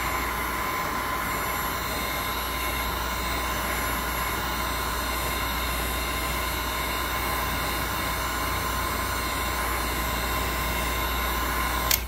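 Electric heat gun blowing steadily, its fan giving an even rush of air with a faint steady whine, heating a stick-on grip wrap to soften it onto a pistol grip; it is switched off abruptly right at the end.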